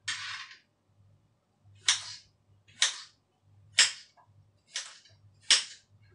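Kitchen knife chopping through a vegetable onto a hard cutting board: five sharp strikes, about one a second. A short hissing scrape comes just at the start.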